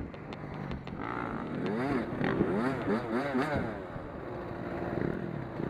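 Several race car engines on a short oval track, their pitch climbing and falling again and again as the cars accelerate and lift off through the turns. The sound is loudest about two to three and a half seconds in.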